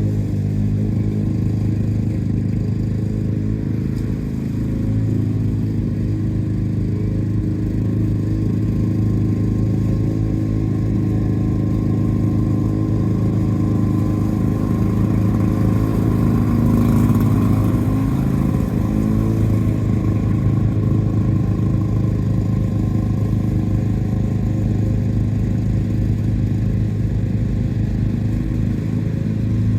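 Two-stroke Lawn-Boy 8073 push mower engine running steadily while mowing. There is a brief change in its note with some scraping just past the middle.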